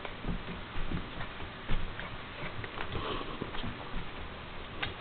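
Small dog's paws scrabbling and thumping on carpet as it spins in circles chasing a toy: an irregular patter of soft taps with a few louder thumps.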